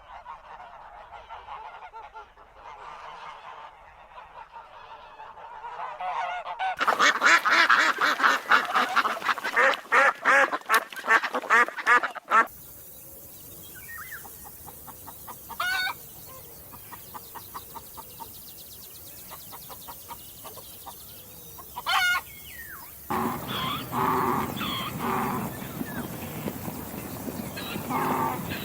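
Domestic waterfowl honking and calling, with a loud run of rapid, repeated honks about a quarter of the way in that cuts off suddenly, followed by scattered single calls. A different, fuller animal sound starts near the end.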